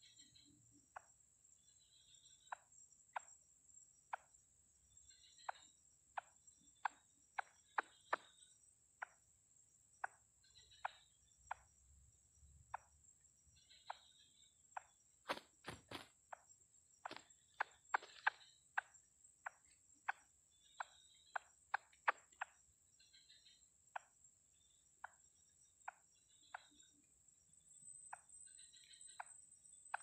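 Steady high-pitched insect drone, with irregular sharp clicks and ticks about one or two a second, coming thickest around the middle.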